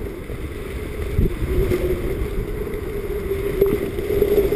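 Wind rushing over a body-worn action camera's microphone while skiing downhill, a steady low rush without speech.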